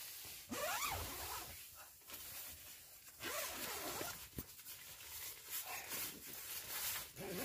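Tent door zipper being pulled along the nylon door in several rasping pulls, with the fabric rustling between them.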